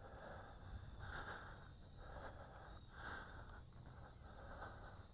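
Near silence with soft breaths close to the microphone, about one every two seconds.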